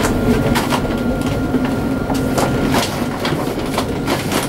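A tram running slowly along its rails, heard from inside the driver's cab: a steady low rumble with a thin steady high whine over it, and irregular sharp clicks and knocks several times a second.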